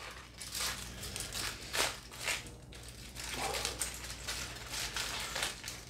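Wrapping of a freshly boiled haggis being torn open and handled: scattered crinkling and rustling.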